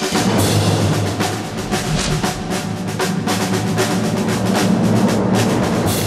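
Documentary opening title music driven by drums and percussion, with rapid strikes over a sustained low tone.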